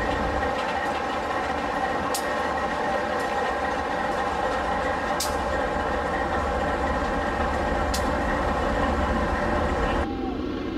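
BNSF diesel locomotive running past at close range with a steady engine drone, with a sharp click about every three seconds. The sound drops off abruptly near the end.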